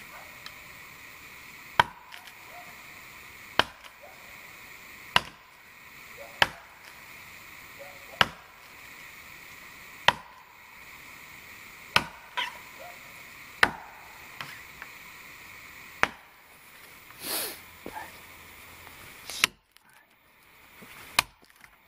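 Axe chopping into the dry trunk of a dead standing tree to fell it: about ten sharp blows, one every one to two seconds.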